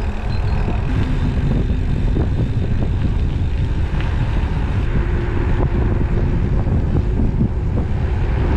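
Wind rushing over an action camera's microphone on a mountain bike rolling along an asphalt road, with a faint steady hum that steps up in pitch about a second in and again midway.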